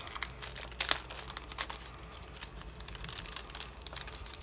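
Clear plastic sleeve crinkling as it is worked off a stack of journaling cards, with irregular small crackles and one sharper crackle about a second in.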